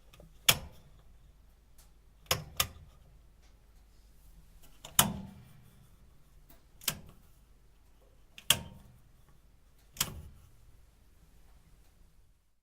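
Kitchen things being handled and set down during Turkish coffee preparation: about seven sharp knocks and clacks spaced a second or two apart, two of them in quick succession about two seconds in.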